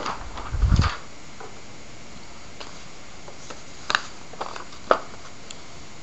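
Steady background hiss of room tone, with a low thump a little under a second in and two small clicks later on.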